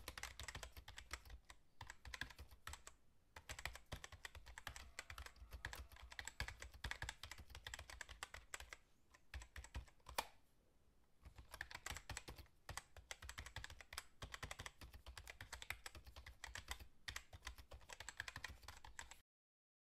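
Faint rapid computer keyboard typing, a dense run of key clicks, with a short pause about halfway through marked by one sharper click. The typing stops just before the end.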